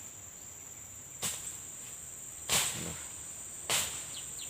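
Steady high-pitched drone of insects such as crickets, with three sharp clicks about a second apart.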